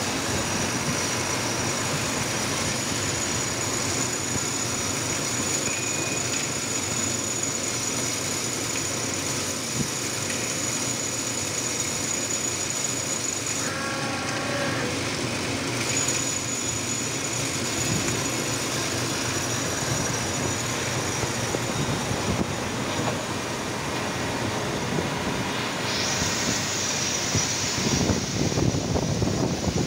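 Steady machine-shop noise of a CNC lathe running with coolant spraying inside its enclosure, with a faint high whine throughout. A brief beep-like tone comes about halfway through, and the hiss grows stronger near the end.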